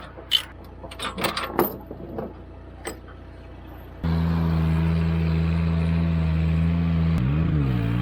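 Scattered clicks and knocks, then from about four seconds in a truck engine running steady and loud, its pitch briefly dipping and rising again near the end.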